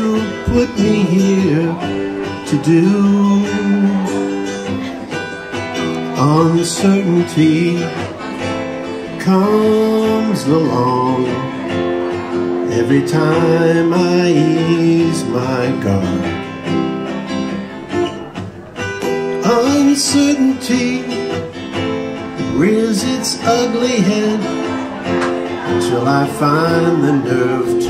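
A man singing a country-folk song while strumming an acoustic guitar.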